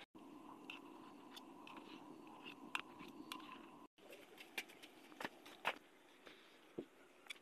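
Faint kitchen sounds: a low steady hum with scattered small clicks, then, after a cut, sparse crackles and pops from veggie balls frying in a wok of hot oil.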